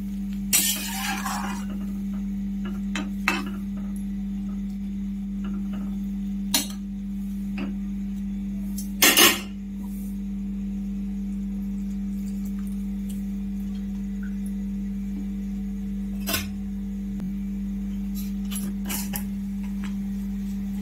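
Metal ladle scraping and clinking against an iron kadai of simmering vegetable curry, then scattered clinks and knocks of utensils, the loudest about nine seconds in, over a steady low hum.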